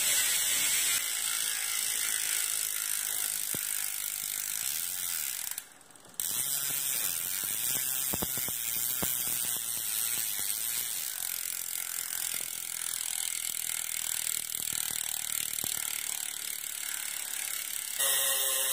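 Hope Pro 2 Evo rear hub freewheeling as the wheel spins, its pawls clicking so fast that they merge into a loud, steady ratcheting buzz, with a short break about six seconds in. In the last moment a Syntace rear hub's freewheel sound takes over.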